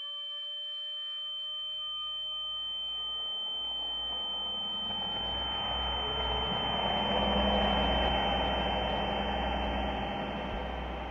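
Eerie soundtrack drone: a steady high-pitched tone held over a wash of noise and low rumble that swells to a peak about two-thirds of the way through, then eases off. At the start, a slowly rising wail like an air-raid siren fades out.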